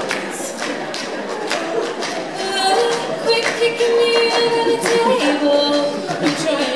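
Mixed a cappella vocal group singing in harmony, a female lead holding one long note in the middle of the phrase over the group's voices. Sharp percussive hits keep the beat throughout.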